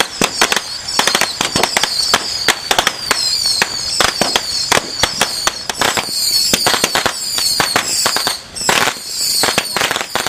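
Firecracker strings going off in a dense, irregular barrage of sharp cracks, many per second, with a brief lull a little past eight seconds in.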